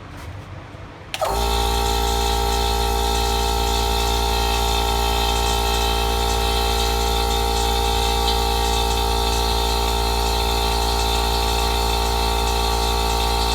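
Small portable Goodyear air compressor switched on about a second in and running steadily with a constant motor hum and whine; it reads about 93 dB on a sound level meter.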